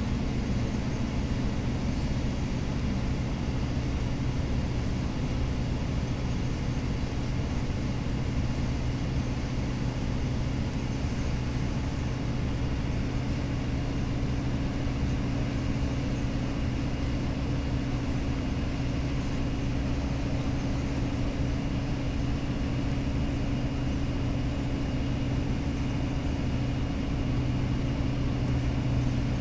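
Cummins ISL diesel engine of a 2008 Gillig Phantom transit bus running steadily at cruising speed, heard from inside the cabin over road noise. The engine drone holds one steady pitch, shifting slightly near the end.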